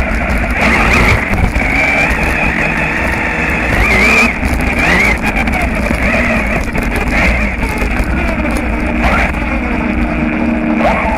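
Radio-controlled buggy heard from its onboard camera while driving hard on gravel. Its motor whine rises and falls with the throttle over a constant crunching rattle of tyres on loose stones.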